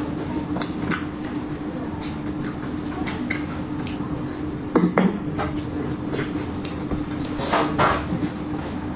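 Dishes and utensils clinking and knocking: many small clicks, with louder knocks about five seconds in and near eight seconds, over a steady low hum.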